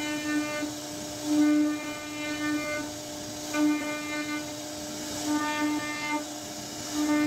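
CNC router spindle running at a steady high whine while its carving bit routs scroll patterns into a wooden door panel. Its tone grows fuller and louder every couple of seconds as the bit works through the cut.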